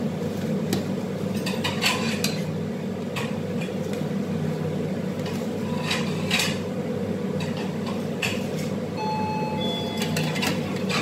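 Metal ladles and a skimmer clinking and scraping now and then against large steel stockpots as the food is stirred, over a steady low hum.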